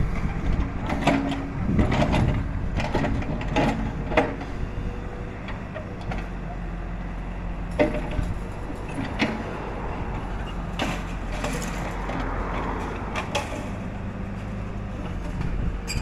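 Backhoe loader's diesel engine running steadily while its bucket digs into soil and rock, with repeated knocks and clatter of stones against the bucket, thickest in the first few seconds and again later on.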